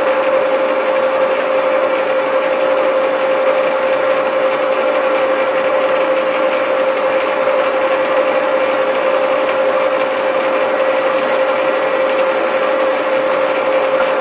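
1V61 screw-cutting lathe running at its lowest spindle speed, a steady mechanical whine with one strong held tone, as a 10 mm drill in the chuck cleans dirt out of a brake caliper's guide-pin bores.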